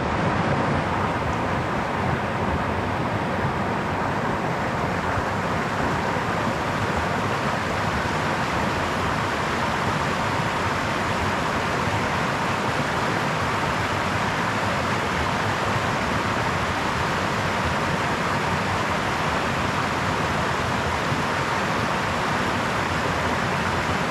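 Brook water running, a steady, even rushing without breaks.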